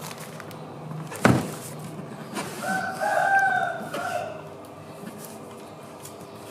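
A sharp knock about a second in, then one long pitched call lasting about a second and a half, over a steady background.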